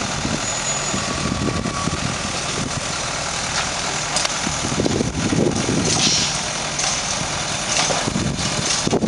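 Diesel engine of a JCB backhoe loader running steadily as its backhoe arm digs and lifts soil, with a few louder, harsher stretches about five and eight seconds in.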